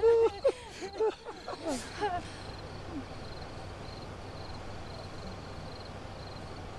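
Several people laughing hard in loud, rapid fits that trail off after about three seconds, leaving a faint steady background hiss.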